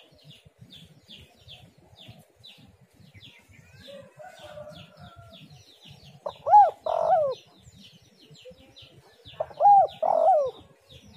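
Spotted dove cooing its song twice, about six and nine and a half seconds in, each phrase a coo that rises, a held middle note, and a coo that falls away; a fainter call comes about four seconds in. A faint chirping of another small bird repeats a few times a second throughout.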